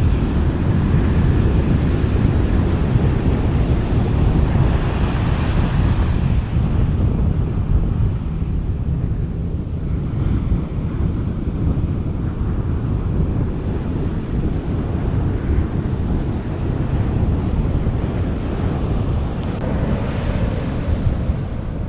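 Gentle sea waves washing onto a beach, with wind rumbling on the microphone. One wave surges up about five seconds in and another near the end, each easing back into a steady wash.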